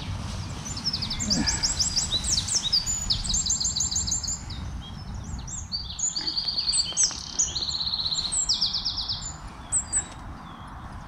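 Small songbirds singing in rapid, high trills and chirps, several songs overlapping, over a steady low rumble.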